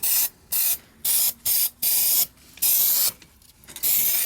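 Aerosol spray paint can being sprayed in about seven short hissing bursts of uneven length, with brief pauses between them.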